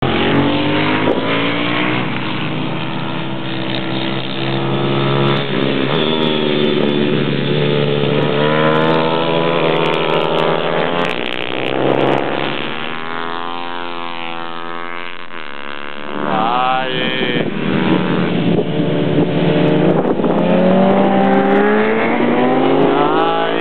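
Pit bike engines racing on a track, revving up and down as the bikes accelerate, brake and shift, with the pitch rising and falling as they pass. The sound dips somewhat partway through, then climbs again with sharp rising revs near the end.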